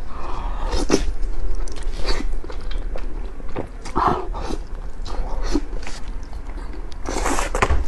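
A person biting into and chewing a large sauce-glazed eel fillet, with many short mouth clicks and a louder stretch near the end.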